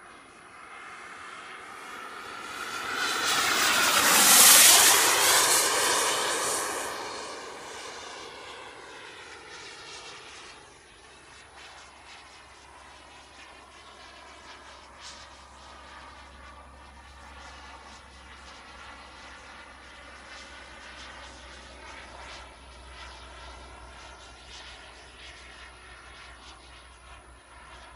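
Boomerang Taurus radio-controlled jet's JetCat 160 turbine whining as the model makes a close pass, loudest about four to five seconds in, its pitch dropping as it goes by. It then fades to a quieter, steady whine as the jet flies farther off.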